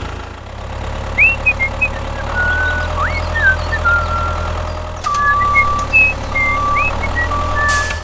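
Tractor engine running steadily, with high chirps and short whistles over it.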